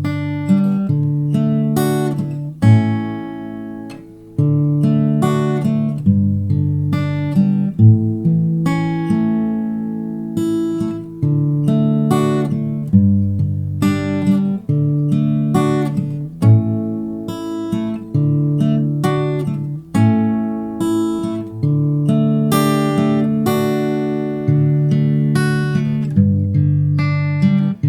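Taylor GS Mini acoustic guitar playing a chord progression, a new plucked or strummed chord every second or two, each ringing on.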